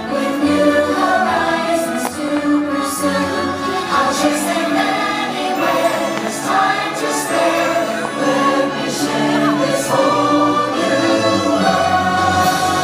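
Show soundtrack music with a choir singing held notes over an orchestral backing.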